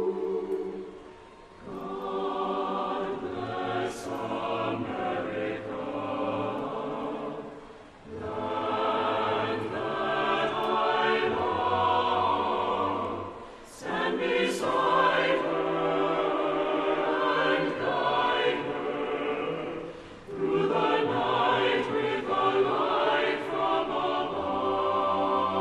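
A choir singing with musical accompaniment, in long phrases separated by brief breaths or pauses.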